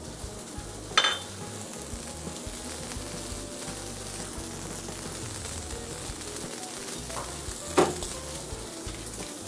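Steady sizzle of food frying in hot oil on a commercial range, with a rib eye searing on the flat-top griddle. Two sharp metal clanks from a pan or utensil, about a second in and again about seven seconds later.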